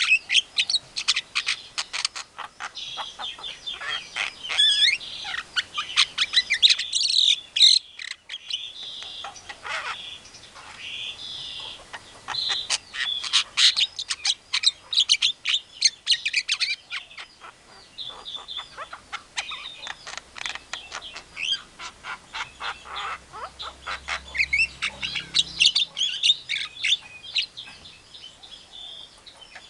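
Javan myna (jalak kebo) singing: a fast jumble of chattering clicks, squeaks and whistled notes, the mixed, mimicking song the species is known for. It breaks off briefly about a quarter of the way in and thins out for a moment past the middle.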